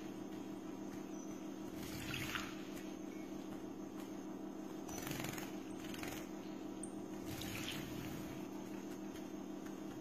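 A sparrow splashing as it bathes in a shallow cup of water: three short bursts of splashing a few seconds apart, over a steady low hum.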